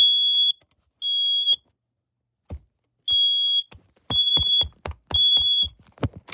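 First Alert 9120B smoke alarm sounding on test: loud, high-pitched half-second beeps in the three-beep alarm pattern, three beeps, a pause of about a second and a half, then three more. A run of sharp clicks and knocks comes through the second half, the loudest near the end.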